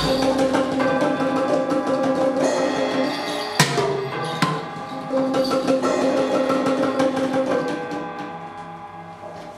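Group percussion improvisation: a hand-struck drum, a frame drum and plastic percussion tubes played in a loose, busy pattern over a held low pitched note that sounds for about three seconds, stops, and returns for another two or so. A sharp strike stands out about three and a half seconds in, and the playing thins out and fades near the end.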